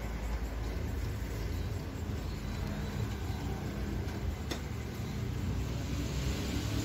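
Steady low rumble of street traffic, with a single sharp click about four and a half seconds in.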